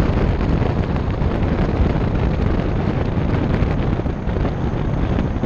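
Wind buffeting the microphone of a camera mounted on the outside of a moving car, heard as a steady, heavy rushing noise with strong low rumble.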